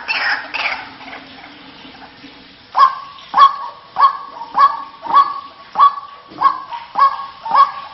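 White-breasted waterhen lure call: a denser run of calls fades out in the first second, then after a short lull, about three seconds in, a steady series of short, sharp calls begins, a little under two a second.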